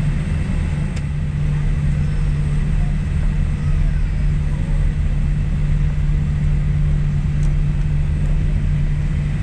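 Steady low rumble and hum inside a Boeing 787-8 cabin with the engines running during taxi, with a few faint steady high tones over it.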